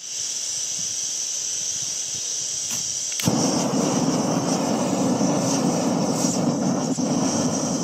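Backpacking canister gas stove: gas hissing from the open burner, then a sharp click about three seconds in as it lights. After that the flame burns with a louder, steady rush.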